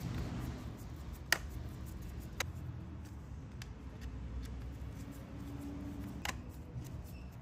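A 4 mm hex wrench turning the carburetor mounting bolts on a chainsaw: a few sharp metal clicks, the loudest about a second in, over a low steady hum.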